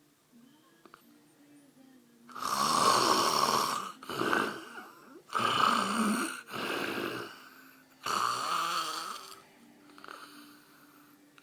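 A man snoring loudly: after a couple of quiet seconds, a string of about five snores, each up to a second or so long, then a fainter one near the end.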